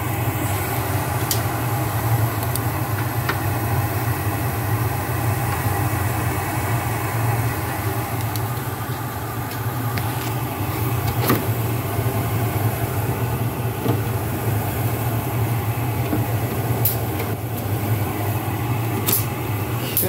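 Carrier gas furnace running with its burners lit and its ECM draft inducer motor pulling hard: a steady low hum with a few light ticks. It runs with the burner cover off, which the technician takes as a sign of a combustion-air intake problem.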